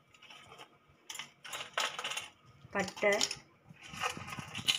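Whole dry spices, star anise pods and cinnamon sticks, dropped by hand into a stainless-steel mixer-grinder jar, clattering against the metal and the almonds and bay leaves already in it in a few short bursts.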